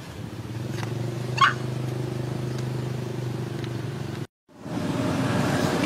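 A motor engine running steadily with a low, even hum, and a short high squeak about a second and a half in. Near the end the sound cuts out abruptly for a moment, then engine noise returns, rougher than before.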